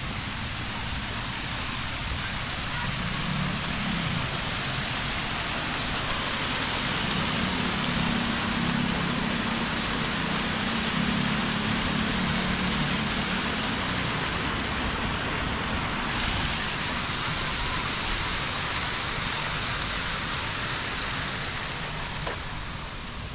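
Water pouring down an artificial rock waterfall and spilling over the rims of stepped fountain pools: a steady rushing hiss that grows louder toward the middle and fades near the end.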